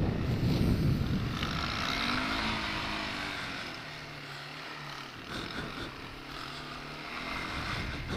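1989 Yamaha Moto-4 250 ATV's single-cylinder four-stroke engine running while being ridden, with wind rushing on the microphone at first; about three and a half seconds in the rush dies down and the engine settles into a steady low hum before picking up again near the end.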